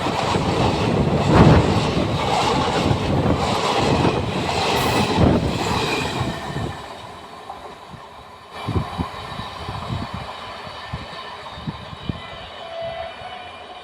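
Indian Railways train passing at speed: loud rushing wheel-and-rail noise that fades about six or seven seconds in, then quieter, with scattered clacks of wheels over the rails.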